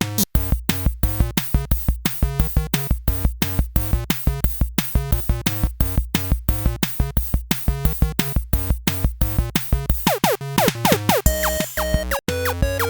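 Upbeat electronic background music: a drum machine beat of about four hits a second under synthesizer notes, with falling synth glides about ten seconds in.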